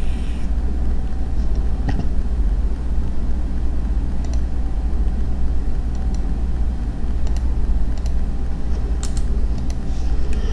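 Steady low background rumble with a few faint clicks, about two seconds in and several more near the end.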